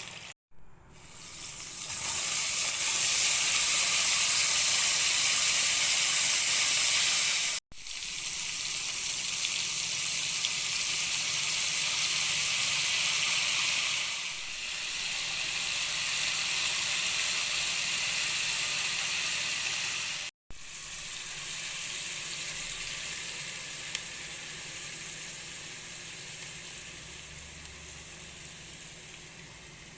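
Fish frying in hot oil in a pan, sizzling steadily. The sizzle drops out abruptly three times, briefly, and softens gradually over the last several seconds.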